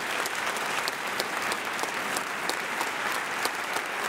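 Congregation applauding: dense, steady clapping of many hands.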